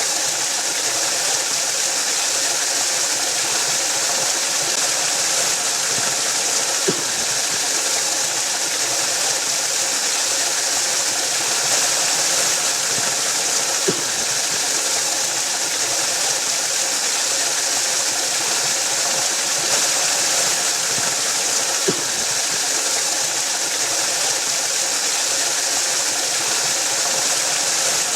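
Waterfall: a steady, unbroken rush of falling water, bright and hissy, with a faint tick about every seven to eight seconds.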